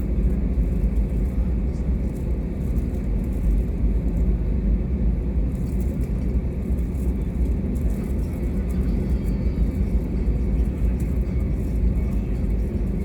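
Steady low rumble of an Airbus A320neo heard from the cabin: engine and airframe noise with no distinct tones and no change in level.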